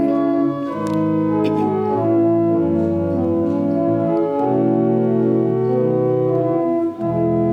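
Organ playing sustained chords between verses of a hymn, the chords changing every second or two.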